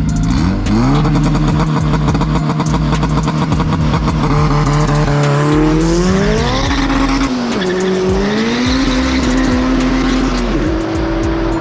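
K-swapped Honda Civic hatchback's engine revving hard: it steps up and holds at steady high revs for about five seconds, then the pitch climbs as the car pulls, drops once and climbs again.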